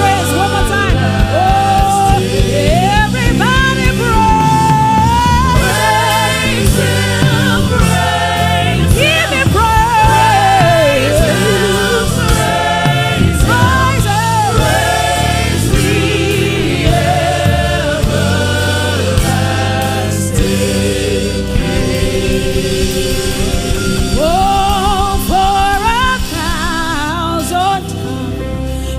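Gospel praise music: sung vocal lines with sliding runs over a choir and steady accompaniment.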